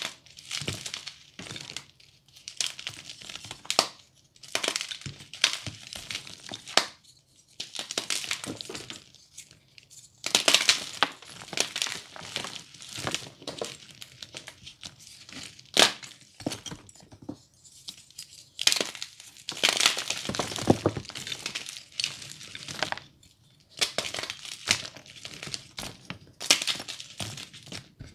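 Reformed gym chalk crushed and crumbled by hand: crunchy crackling as dry chalk chunks break apart, coming in repeated bursts with short pauses between squeezes.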